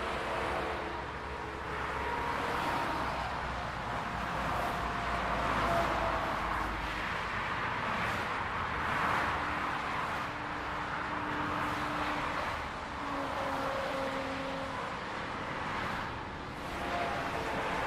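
Highway traffic: a continuous rush of tyre and engine noise from passing cars, swelling and fading every few seconds as vehicles go by.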